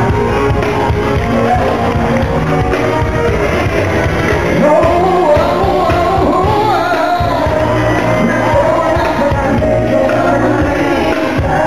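Live pop music in a tango arrangement with a man singing, played loud through the sound system of a large hall, with shouts from the audience.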